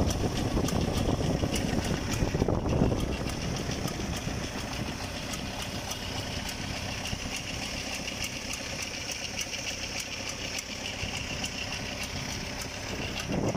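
Diesel engine of a walking tractor running steadily at low speed with a fine, even knock.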